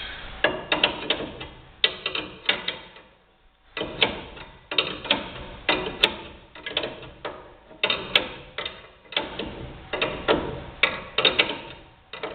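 Runs of sharp, irregular metallic clicks and clacks, several a second with short pauses between them, from hand tools working on the front suspension.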